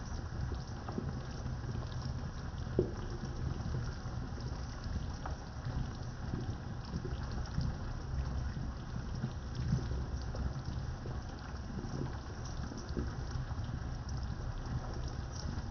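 Dark 7 Up braising sauce simmering around a whole chicken in a pot: steady low bubbling with scattered small pops as the sauce cooks down.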